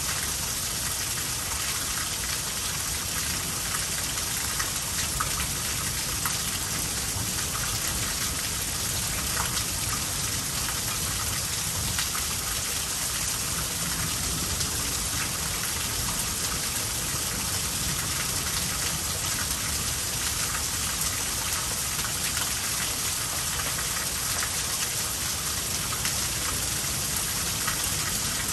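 Heavy rain pouring steadily in a thunderstorm, an even unbroken hiss with a few drops tapping close by now and then.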